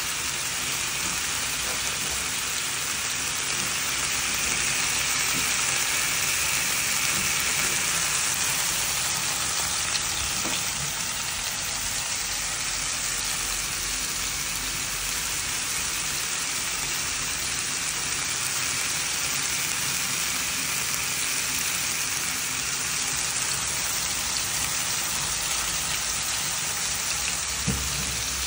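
Steady sizzling of oil in frying pans, with breaded pork schnitzel and chopped romanesco frying.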